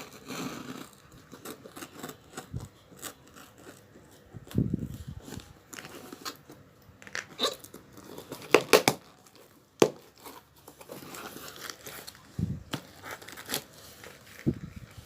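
Plastic parcel packaging being torn open and crinkled by hand: irregular crackling and tearing, with a few sharp snaps about nine to ten seconds in.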